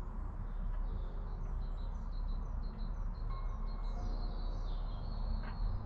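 Small birds chirping with short high calls, several coming in quick succession in the middle, over a steady low rumble.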